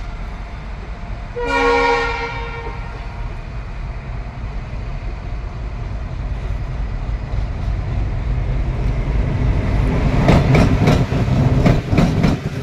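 Indian Railways diesel locomotive sounding its horn once, a blast of about a second, then its engine rumble growing louder as it approaches and passes close. Its wheels clatter over the rail joints near the end.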